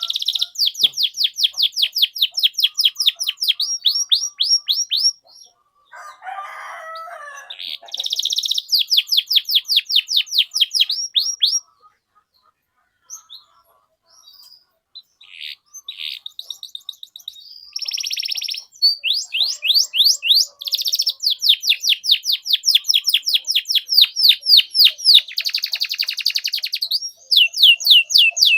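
Canary singing long trills of rapid, evenly repeated high chirps ('cuit cuit') in several runs separated by short pauses, with a brief harsh rasping phrase after the first run and a buzzy note late in the last run.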